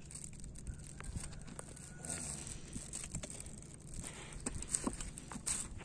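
Faint scattered clicks, taps and rustles of hands handling bait and fishing gear on a boat deck, over a steady low rumble.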